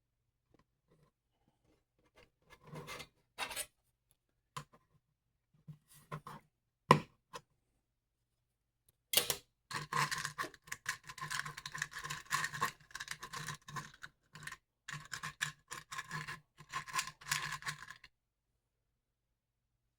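Hand work on 3D-printed plastic parts and metal hardware: a few scattered clicks and knocks, then about nine seconds of dense scratchy scraping and rasping that stops abruptly near the end.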